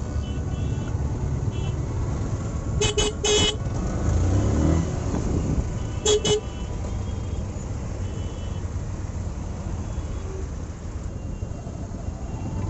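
Short vehicle horn honks: three quick beeps about three seconds in and two more about six seconds in. They sound over a steady low rumble of motorcycle engine and slow-moving traffic.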